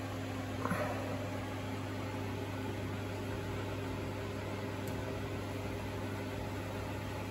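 Steady low electrical hum with hiss, from a fan or appliance in the room. A brief faint sound comes just under a second in.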